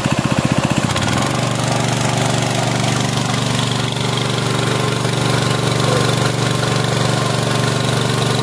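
GX200-type single-cylinder four-stroke petrol engine driving a 3-inch water pump, throttled up about a second in: its slower pulsing run rises to a steady, faster one. Water rushes and splashes from the pump's outlet underneath.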